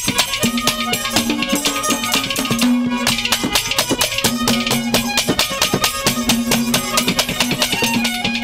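Instrumental passage of Haryanvi ragni folk music: dholak drums beating a fast, dense rhythm under a harmonium holding long notes that break off and return.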